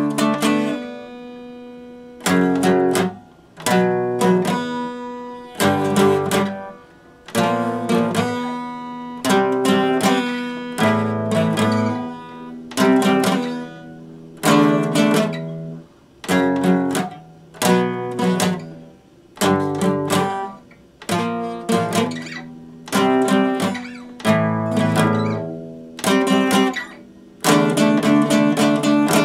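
Epiphone acoustic guitar strummed, chords struck every second or two and left to ring out between strokes.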